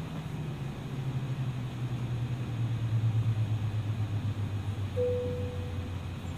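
Cabin drone of an Embraer 175's GE CF34-8E jet engines, a low hum falling slowly in pitch as they wind down. About five seconds in, a single soft cabin chime sounds and fades.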